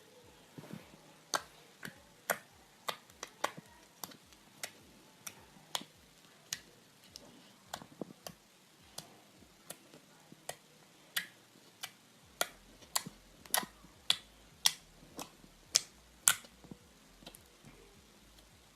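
Slime being pressed and stretched by hand, with air pockets popping in sharp, irregular clicks, about one or two a second.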